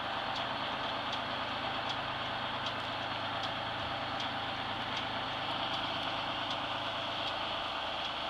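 GMC New Look transit bus's diesel engine running steadily at low revs as the bus creeps forward, with a faint regular tick about every three quarters of a second.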